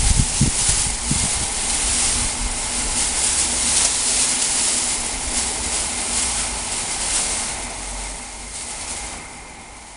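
Chain of plastic bags swung through the air, rustling and whooshing as they fill with air, in surges with each sweep. There are a few low buffets in the first second or so, and the noise dies down near the end.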